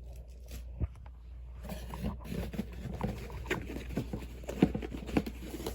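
Handling of packaging and small accessories during an unboxing: one light click, then from about two seconds in a steady run of small clicks, taps and rustles.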